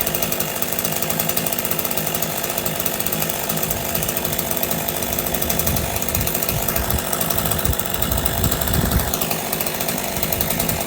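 Stihl MS 201 C-M two-stroke chainsaw running at full throttle while cutting through a large Douglas fir round. Its engine note dips about nine seconds in.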